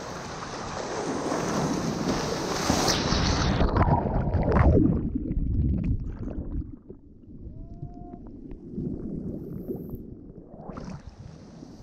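Whitewater of a breaking wave rushing and splashing around a surfboard. About three seconds in the hiss fades, and from about seven seconds the sound turns low and muffled under the foam.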